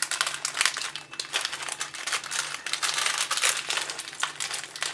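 Plastic bags of Lego pieces crinkling and rustling as they are handled, a dense run of small crackles.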